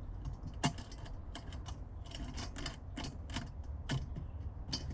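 Irregular light metallic clicks and taps of small hardware being handled: a washer, lock washer and wing nut going onto a bolt on a Weber Smokey Joe grill's leg, several clicks a second with a sharper one about half a second in.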